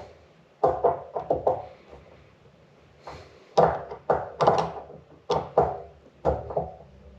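Clusters of sharp knocks and clacks from small parts and hand tools being handled on a workbench during petcock reassembly, several strikes in quick runs with short pauses between them.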